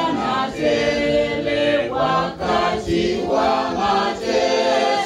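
A group of voices singing a church liturgy chant unaccompanied, in sustained notes.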